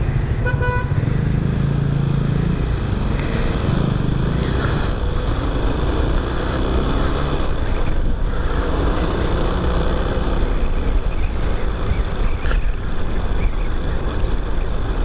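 A Chinese-made motorcycle's engine running while riding in city traffic, mixed with steady road and wind noise.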